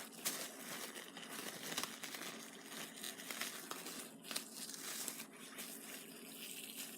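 Slime packaging crinkling and crackling irregularly as the slime inside it is poked and pressed.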